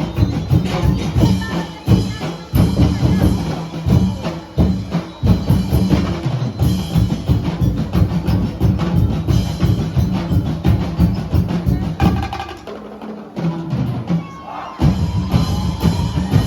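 Drum-heavy street-dance music: a dense, steady drum beat that drops away for about two seconds near the end, then starts again.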